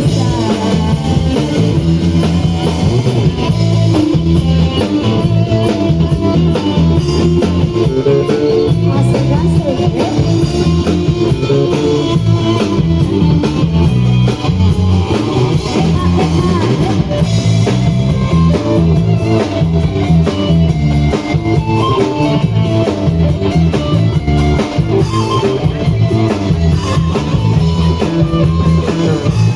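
A Chinese song playing at a steady, loud level, with guitar and drum kit.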